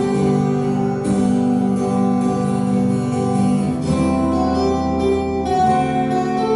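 Two acoustic guitars playing an instrumental duet, with ringing chords and picked melody notes that change about every second or so.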